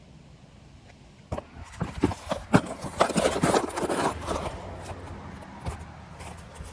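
Small plastic car parts being handled: a few sharp clicks and knocks, then a couple of seconds of rustling and scraping that dies down.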